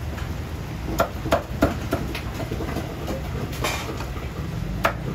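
Cleaver chopping on a round wooden chopping board: several sharp chops at uneven intervals over a steady low rumble.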